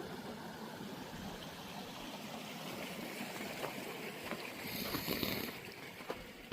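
Steady rush of Tumalo Creek's water, with footsteps clicking in from about halfway through.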